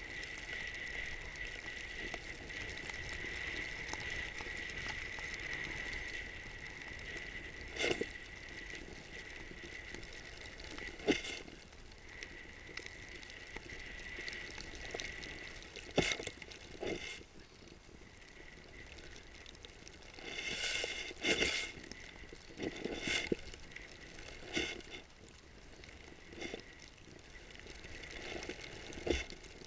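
Snowboard riding through deep powder, heard through a pole-held action camera: a steady rush of wind and snow with a faint whistle over the first few seconds, broken by scattered sharp knocks and scrapes, several close together about twenty seconds in.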